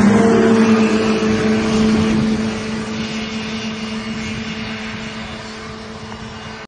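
Snowmobile engine running with a steady note, loudest at first and fading as the machine drives away across the snow.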